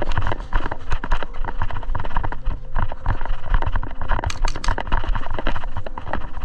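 Rapid, irregular knocking and clatter, many short knocks a second.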